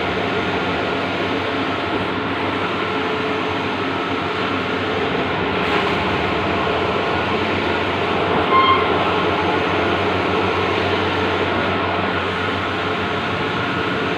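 Bluewin large-format outdoor printing machine running steadily: a continuous mechanical hum and whir. A short high-pitched tone sounds once, about eight and a half seconds in.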